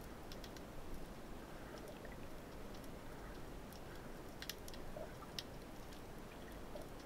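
Faint underwater ambience recorded through a camera's waterproof housing: a low wash of water noise with scattered sharp clicks and crackles, a couple of them louder past the middle.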